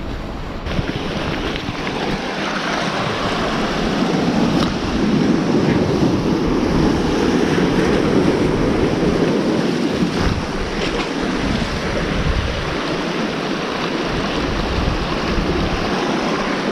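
Sea water surging and foaming over reef rocks, building to its loudest around the middle, with wind buffeting the microphone as a patchy low rumble.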